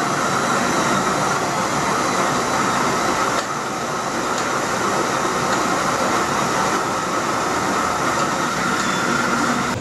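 Cordless drill driving a Daddy Mill roller grain mill as it crushes pale ale malt: the drill's steady tone runs over a continuous grinding of grain, dipping slightly about three and a half seconds in.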